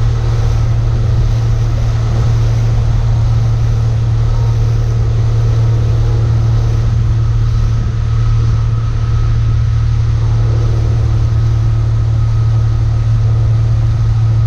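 Boat motor running steadily with a constant low hum, heard from on board.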